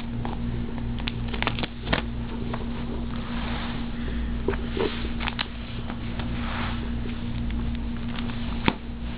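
Plastic trade-binder pages being handled and turned, with soft rustles and scattered clicks over a steady low hum.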